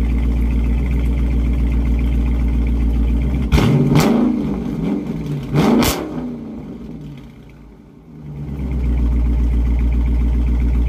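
Dodge Charger R/T's 5.7-litre HEMI V8 with its mid mufflers deleted, idling and then revved twice, about three and a half and six seconds in. The revs fall away and it settles back into a steady idle near the end.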